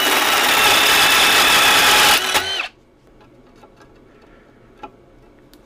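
Electric drill boring into steel angle iron with a blue multi-purpose drill bit, enlarging a hole to take rebar. The drill runs at full speed with a steady high whine and stops about two seconds in. A brief second burst follows, then the motor winds down, followed by a few faint clicks.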